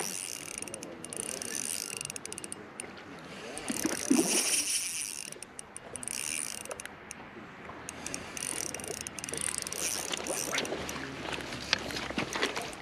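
Spinning fishing reel working in spurts while a hooked trout is played in: a mechanical whirring and ratcheting that starts and stops, with short pauses between.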